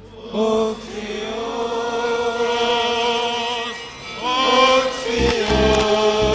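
Liturgical chant: voices sing long held notes on "Oh" in two drawn-out phrases, the second starting about four seconds in. A few low thuds come near the end.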